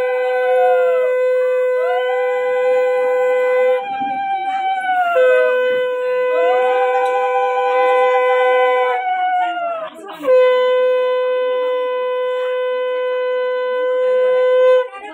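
Two conch shells (shankha) blown together in long held blasts: one holds a steady lower note in three long blasts, breaking briefly about four seconds in and again near ten seconds, while the other swells up and sags away at the end of each breath. This is the ritual blowing of conches that marks an auspicious moment in a Bengali wedding rite.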